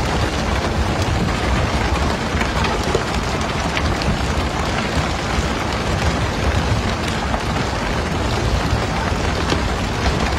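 Steady rush of water spray and boat engine noise on a pole-and-line tuna boat, with scattered knocks as tuna are flung onto the deck.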